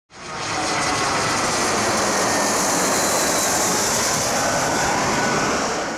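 Jet airliner passing overhead: a steady engine roar with a strong hiss and a faint high whine, fading in quickly at the start.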